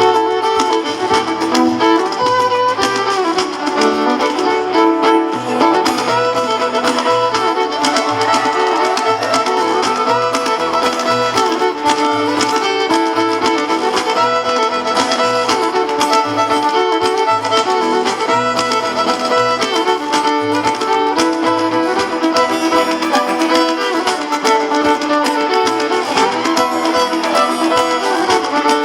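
Live acoustic string-band music with no singing: a fiddle leads an instrumental passage with sliding, held notes over plucked strings and a pulsing bass line.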